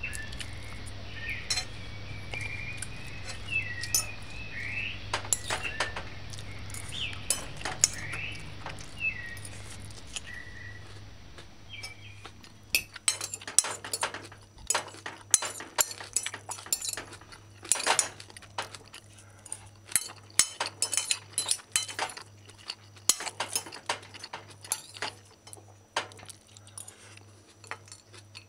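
Metal fork clinking and scraping on a ceramic dinner plate while food is picked up. The clinks come sparsely at first, then thick and sharp through the second half.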